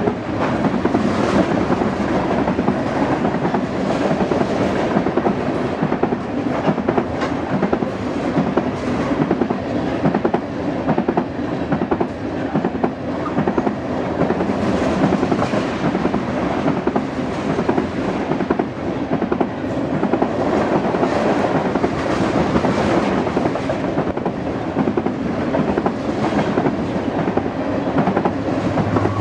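Freight train of covered hopper cars passing at close range: a steady rumble of steel wheels on rail, broken by repeated clicks as the wheels cross rail joints.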